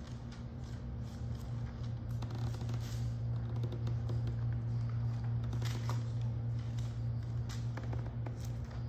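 Bible pages being leafed through and rustled, with scattered light clicks and shuffles, over a steady low hum.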